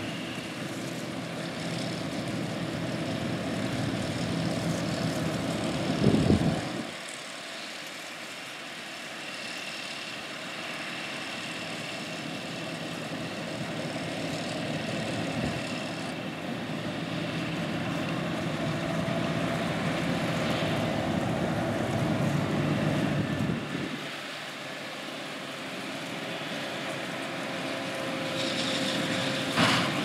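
Diesel engines of John Deere 8245R tractors running steadily under load, a continuous drone with a deep rumble that swells and then drops away abruptly twice.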